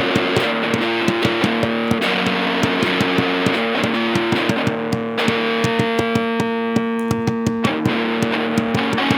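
Instrumental passage of a homemade song: guitar playing held notes and chords over a steady beat of hands banging on a table in place of drums.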